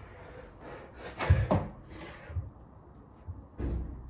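Dull thuds of hands and feet landing on an exercise mat during three-pump burpees, several in a few seconds, with hard breaths between them.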